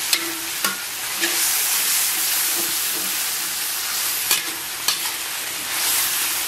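Oil sizzling steadily in a wok as aromatics and chili bean paste are stir-fried over low heat to fry out the red oil. A spatula scrapes through the mixture and knocks sharply against the wok a few times.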